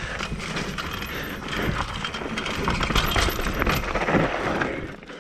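Mountain bike rolling fast over a dry, rocky trail: a steady rush of tyre and wind noise with constant rattling and clattering from the bike over loose stones, easing off near the end.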